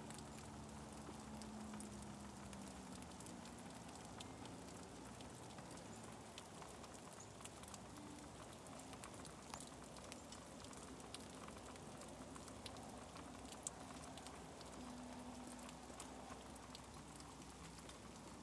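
Freezing rain pattering faintly, a steady run of fine ticks on icy surfaces, with one sharper tick a little past the middle.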